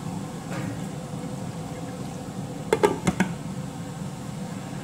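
A glass pan lid clinks down onto a frying pan, a few sharp knocks about three seconds in. Underneath is the steady low sizzle of ground beef frying.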